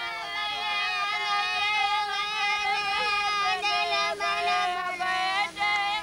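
Tiwi Kulama ceremonial song: singing on long held notes that dip slightly at the ends of phrases, with a few sharp claps in the second half.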